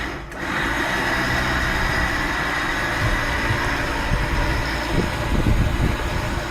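A vehicle engine running steadily at idle, a second or two after being started, with a few light knocks in the second half.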